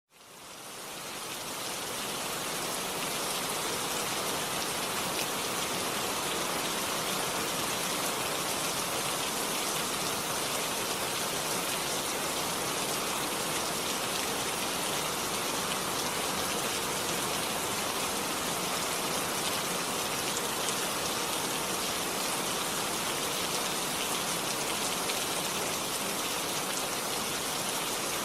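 Steady rainfall, a dense even hiss of many drops, fading in over the first couple of seconds and then holding steady.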